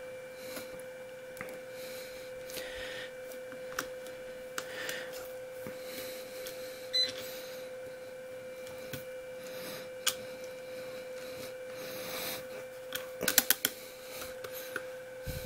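Light clicks and taps of a chassis brace and screws being handled and fitted onto a 1/16 Traxxas E-Revo RC truck, with a quick rattle of clicks near the end, over a steady faint hum.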